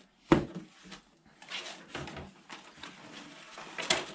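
Paper pages being handled and turned, rustling, with a sharp knock about a third of a second in and another near the end.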